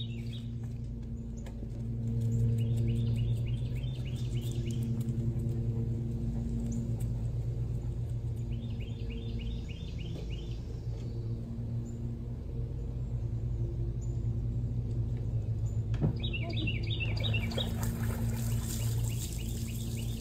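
A bird sings three short phrases of rapid, high chirping notes, several seconds apart, over a steady low mechanical hum.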